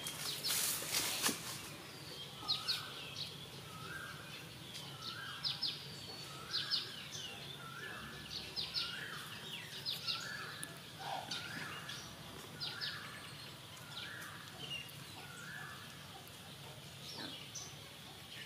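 Birds calling outdoors: one repeats a short note a little over once a second, while others give sharp high chirps. A brief crackling rustle, like dry leaves, sounds near the start.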